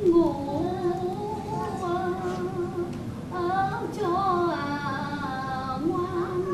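A woman's voice singing a slow, wavering melody of long held notes with sliding ornaments, without clear words, breaking off briefly about three seconds in and taking up a new held note near the end.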